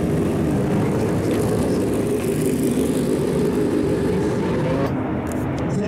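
A motor-vehicle engine running steadily, its pitch wavering slightly, under a wash of noise. The hiss thins out about five seconds in.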